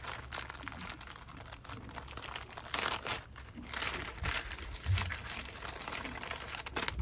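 Plastic packaging crinkling and rustling in irregular handfuls as accessories are taken out of a new stereo's box.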